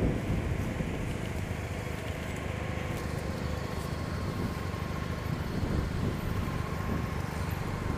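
Suzuki Burgman scooter's engine idling steadily while stopped.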